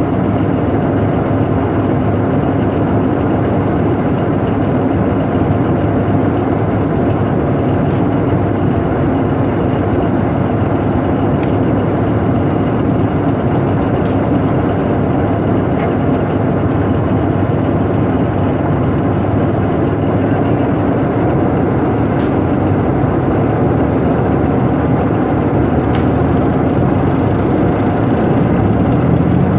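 Diesel engine of a TAM medium tank running steadily, heard from on top of the hull as a loud, even drone.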